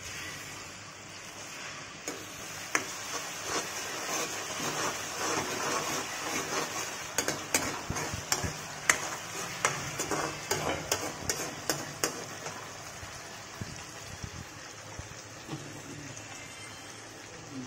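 Chopped onions and tomatoes sizzling in oil in a metal kadai, with a metal spatula scraping and clinking against the pan as they are stirred. The clinks come thick and fast around the middle.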